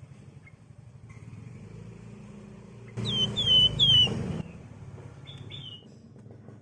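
Javan wergan (flamboyan) singing: about three seconds in, a loud run of three quick falling whistled notes, then a short fainter double note, over a steady low hum.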